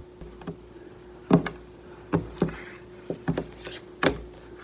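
Baby clothes being folded and handled: several short, soft bumps and rustles, the sharpest about four seconds in, over a faint steady hum.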